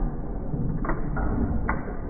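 1909 Domestic 1 hp hit-and-miss engine running, with a steady low rumble and two sharp mechanical clicks, one about a second in and one just before the end.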